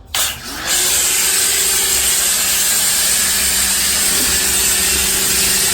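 High-pressure washer switching on: its motor hum climbs to speed within about half a second, then runs steadily under a loud, high hiss of the spray jet. The motor's pitch dips briefly about four seconds in.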